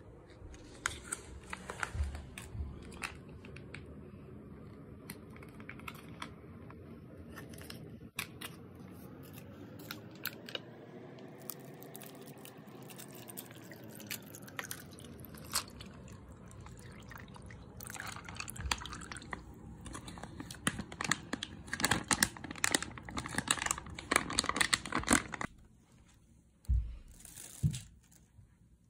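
A plastic drink pouch crinkling as it is handled and emptied over ice into a plastic cup, with sharp clicks of ice and plastic, and a long stretch of dense crinkling and crackling about two-thirds of the way through.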